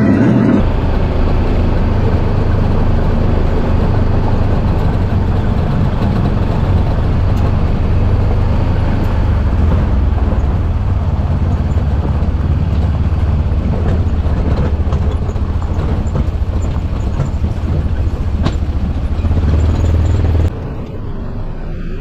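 A Bobcat E42 mini excavator's diesel engine runs steadily under digging load, a low hum with a few faint knocks. Near the end it drops abruptly to a quieter level.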